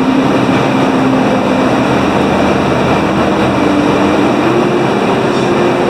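A heavy engine running steadily with a loud droning hum, its pitch stepping up about four and a half seconds in.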